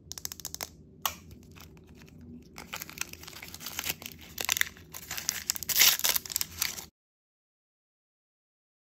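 Thin plastic wrapper film crinkling, crackling and tearing as the layers are peeled off an L.O.L. Surprise ball, loudest in a run of tearing about four to six seconds in. It cuts off suddenly about seven seconds in.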